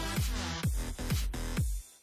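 Electronic dance music with a heavy, deep kick drum about twice a second under layered synths. It cuts out briefly near the end.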